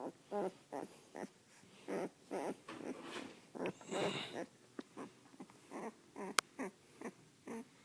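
Weimaraner puppy making a string of short whimpering and grumbling noises, about fifteen in all, with one sharp click near the end.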